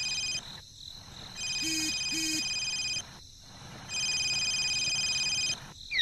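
High, pulsing insect trill like a cricket chorus, coming in three bursts of about a second and a half each with short gaps between them. Two short, lower calls sound about two seconds in.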